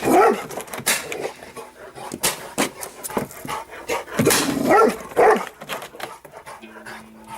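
A dog barking in short bursts, several barks near the start and a cluster about four to five seconds in, with sharp cracks scattered among them.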